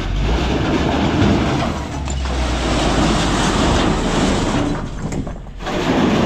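A load of hardcore stones sliding off a tipper truck's raised bed: a continuous rumbling clatter of rocks tumbling onto the ground, with the truck's engine running underneath. The clatter drops away briefly about five and a half seconds in, then picks up again.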